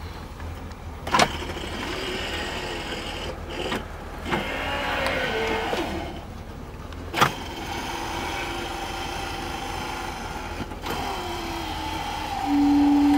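1971 Chevrolet Corvette driving, heard from inside the cabin: steady engine and road noise, with two sharp knocks, one about a second in and one about seven seconds in. A short steady tone sounds near the end.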